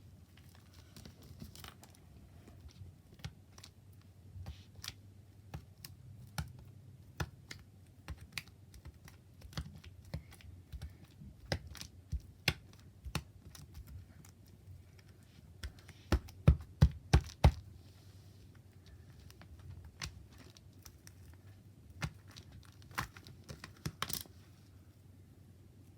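Clear slime being poked, pressed and stretched by hand, making scattered sharp clicks and pops. A quick run of about five louder pops comes about sixteen seconds in.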